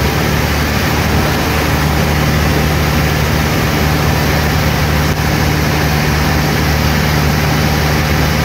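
Cessna 152's four-cylinder Lycoming engine and propeller running steadily, heard from inside the cockpit as a loud low hum mixed with wind and airframe noise.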